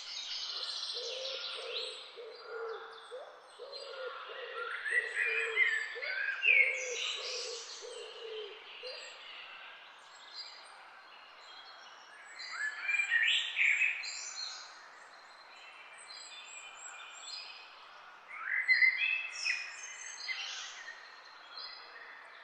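Several songbirds chirping and trilling, with louder bursts of song at intervals. For the first nine seconds or so, a low call repeats steadily beneath them.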